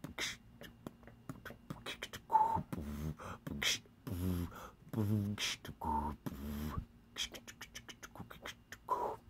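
A man beatboxing: short hummed and voiced bass notes alternating with sharp mouth clicks, with a quick run of clicks near the end.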